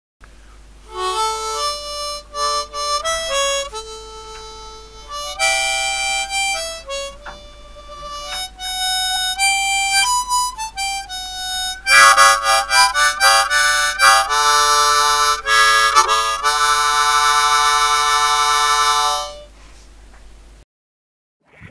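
Background music: a solo harmonica playing a tune of short single notes, then chords, ending on a long held chord that stops about 19 seconds in.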